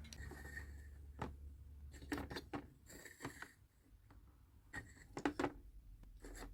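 Small toy pieces and packaging handled during an unboxing: a run of light clicks and taps in little clusters, with a brief crinkly rustle about three seconds in.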